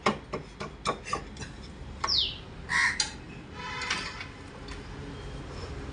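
Sharp metallic clicks, about three a second, as a ratchet spanner works a bolt on a tractor's differential housing, stopping after about a second and a half. Then birds call: a short falling whistle about two seconds in and a couple of louder calls just after.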